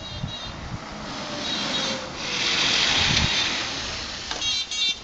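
Renault Twizy electric car driving past on paving stones: tyre noise swells as it approaches, is loudest around the middle, then fades, with no engine sound. A few short high-pitched beeps come near the end.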